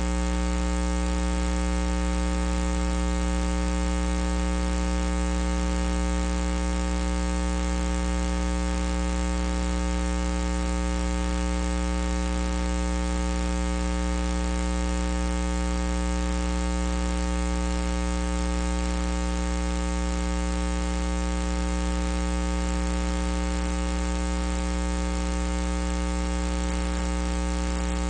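Steady, unchanging electrical mains hum with a buzz of higher overtones and a hiss above it.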